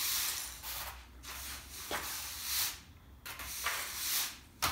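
Push broom sweeping a concrete garage floor: repeated bristle swishes, about one stroke a second.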